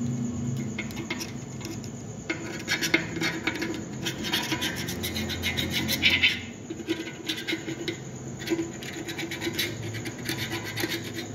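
Hand scraping of red powder coating off a car engine valve cover: repeated, irregular rasping strokes of a tool against the coated metal, loudest about six seconds in.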